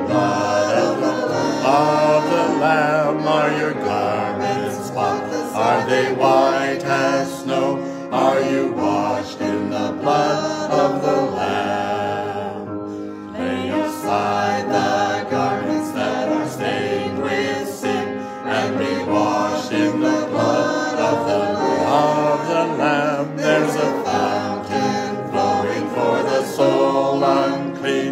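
Hymn singing by a small group of men's and women's voices together, with a short break between lines about halfway through.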